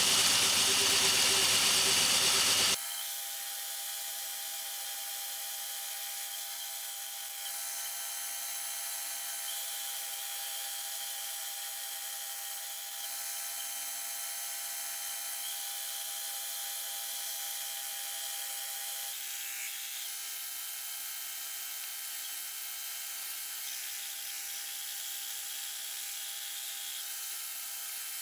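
Bandsaw running and cutting through a thick softwood block turned on a circle jig, a steady whine and hiss. It is loud at first, then drops suddenly to a quieter, thinner level about three seconds in and carries on steady.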